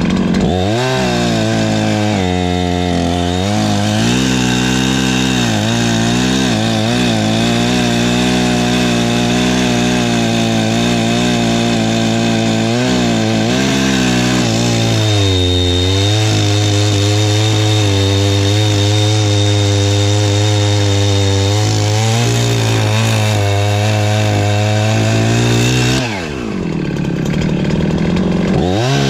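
Perla Barb 84cc two-stroke chainsaw running at high revs while cutting through firewood, its engine note sagging and recovering as the chain loads up in the wood. About 26 seconds in the revs fall away briefly, then climb back up near the end.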